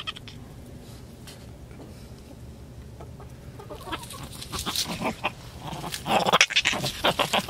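Hens clucking and squawking in quick bursts, starting about four seconds in and getting louder near the end.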